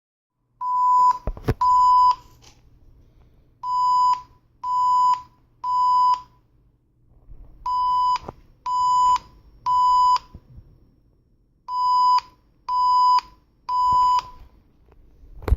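Fire alarm evacuation signal: electronic beeps at about 1 kHz in the temporal-three pattern, half-second beeps in groups of three with a longer pause between groups, calling for the building to be evacuated. A sharp knock comes about one and a half seconds in, with a low hum underneath.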